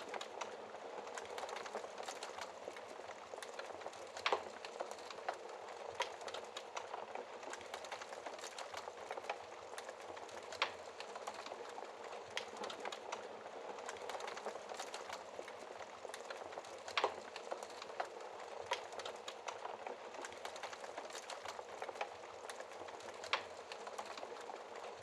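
Wood fire crackling steadily, with a constant hiss, many small ticks and a louder sharp pop every few seconds.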